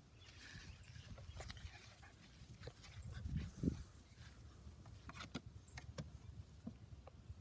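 Bernedoodle puppy giving a short vocalization about three and a half seconds in, amid light rustling and clicks as it moves about, over a steady low rumble of wind on the microphone.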